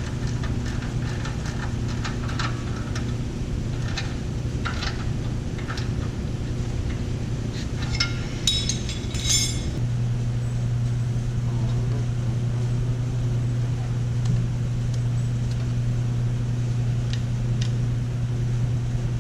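An engine running steadily, with a few sharp metallic clinks. About ten seconds in, the engine note changes and becomes louder and steadier.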